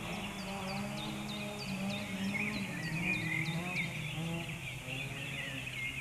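A low, steady engine drone whose pitch shifts a little now and then, with small birds chirping over it.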